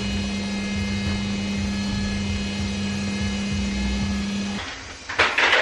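Electric stand mixer's motor running at a steady pitch as its flat beater mixes cake batter in a stainless bowl, switching off about four and a half seconds in. A couple of sharp knocks follow near the end.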